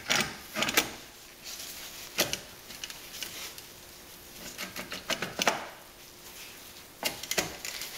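Irregular metal clicks, knocks and scrapes as the aluminium jet pump housing is fitted onto a Yamaha F50 outboard's jet lower unit and its bolts are started by hand.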